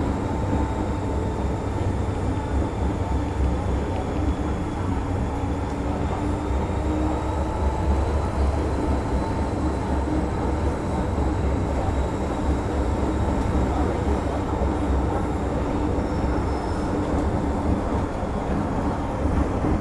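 MTR Metro-Cammell M-Train electric multiple unit running at speed between stations, heard from inside the carriage: a steady low rumble of wheels on rail with an even motor hum and a faint high whine.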